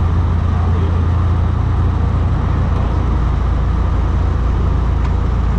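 Twin Pratt & Whitney radial piston engines of a Douglas DC-3 running steadily in flight, a deep, even drone heard from the cockpit with the sliding windows slightly open.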